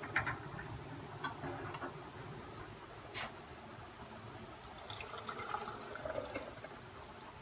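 Reduced, thickened milk poured from a pan into a glass blender jar: a soft pouring splash from about four and a half to six and a half seconds in, after a few light knocks.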